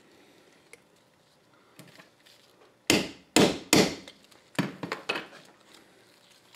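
Three sharp hammer blows on a steel bearing driver, followed by a few lighter knocks. The blows are driving a roller bearing down into a Ford power steering gearbox's input-shaft valve housing, to sit below the snap ring.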